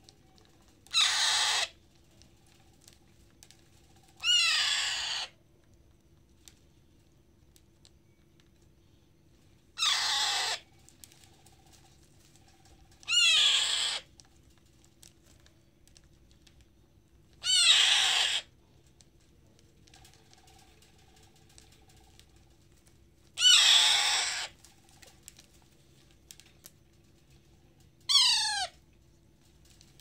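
Parrot chick giving loud, harsh begging screeches while being hand-fed with a spoon: seven calls, each about a second long, several seconds apart, some sliding down in pitch.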